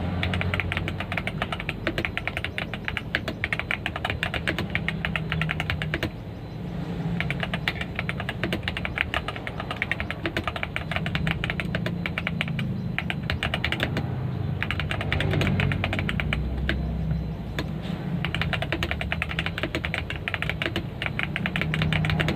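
Typing on a CIY 68 mechanical keyboard fitted with Aflion switches and Cherry-profile keycaps: fast runs of keystroke clicks and clacks, with a brief pause about six seconds in and another around fourteen seconds.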